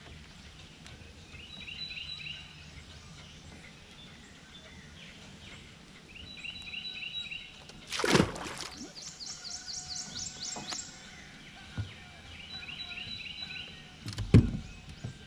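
A songbird sings the same short phrase of quick slurred notes three times, with another bird's rapid high series of notes in between. About eight seconds in there is a splash in the water, and near the end a loud knock on the boat.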